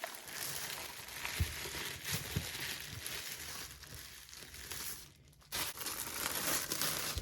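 Packaging crinkling and rustling as a keyboard is unwrapped and lifted out of its box, with a few soft bumps and a brief pause about five seconds in.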